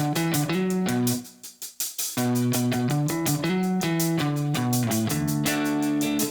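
Background music led by plucked guitar with a steady beat, dropping out briefly about a second in before picking up again.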